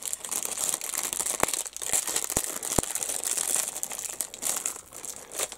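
Clear plastic bag around a plastic model-kit sprue crinkling as it is handled, with a few sharp clicks of plastic parts knocking together.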